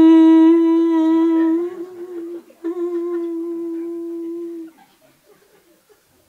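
A woman humming one long, steady note into a microphone. It breaks off briefly about two and a half seconds in, then is held again at the same pitch until nearly five seconds in.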